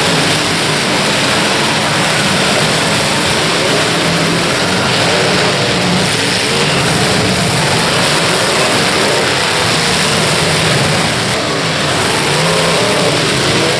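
Demolition derby car engines revving together, loud and continuous, their pitch rising and falling as the drivers work the throttles.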